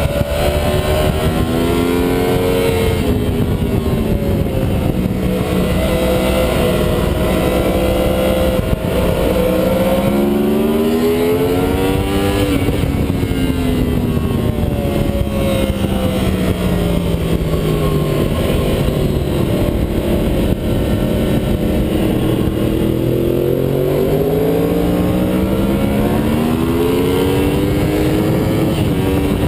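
2009 Yamaha YZF-R1's crossplane inline-four engine heard from on board at track speed, with revs climbing hard through the gears, falling away for several seconds in the middle under braking and downshifts, then climbing again near the end. A steady rush of wind runs under it.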